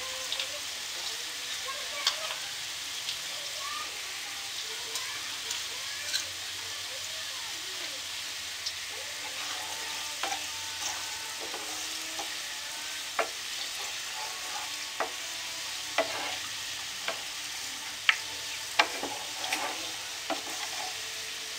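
Garlic frying in hot oil in a pan with a steady sizzle, while a spatula stirs and clicks against the pan now and then. The clicks are louder and more frequent in the second half.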